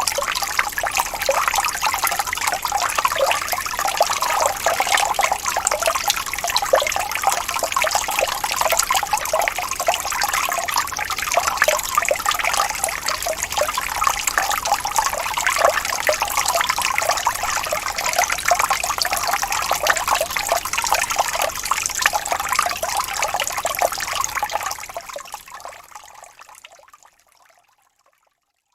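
Gently rippling stream: a steady babbling and trickling of running water, full of small splashes. It fades out over the last few seconds.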